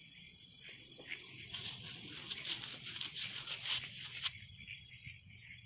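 Night insects chirring steadily at a high pitch, with a few light clicks and rustles in the middle and one sharp click about four seconds in.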